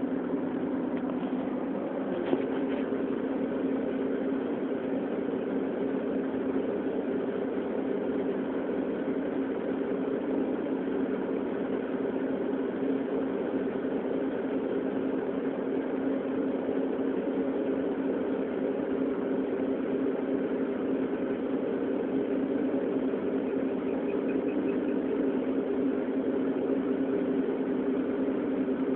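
CNC milling machine face-milling a magnesium plate: the spindle and face mill run at a steady hum as the cutter takes its facing pass. A single sharp click sounds about two seconds in.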